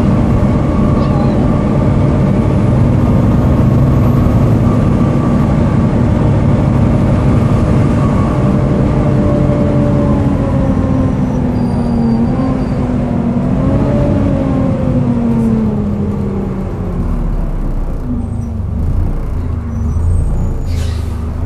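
Volvo B7TL double-decker bus under way: its six-cylinder diesel running with a loud, vacuum-cleaner-like whine from the engine cooling fan. The whine holds a steady pitch, then falls over a few seconds in the second half as the revs drop. A brief knock comes near the end.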